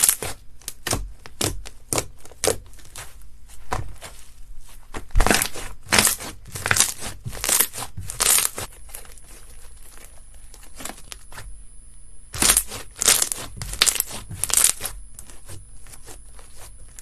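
Slime being squeezed and pressed by hand, giving runs of short crackling, popping squishes with quieter pauses between the runs.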